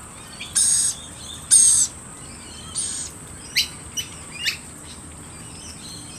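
A mixed flock of wild birds calling: three harsh, scratchy screeches in the first half, then several sharp whistled notes that drop quickly in pitch, over a faint steady high-pitched hum.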